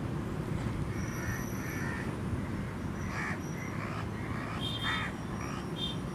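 Birds calling outdoors, several short harsh calls over a steady low background rumble.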